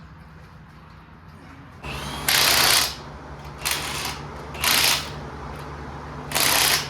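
An electric fan is plugged in and starts up with a steady low hum about two seconds in. Over the hum come four short, loud hissing bursts.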